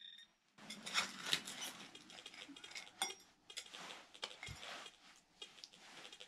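Faint gritty scraping and rustling as a pinpointer probe and fingers dig through loose, stony dirt, with a few small clinks.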